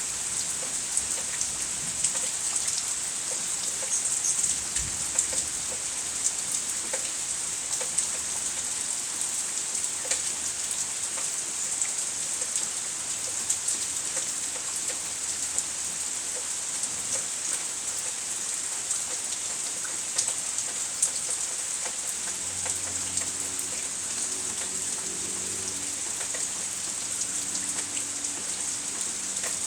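Steady rain falling in a thunderstorm: an even hiss dotted with many sharp ticks of individual drops.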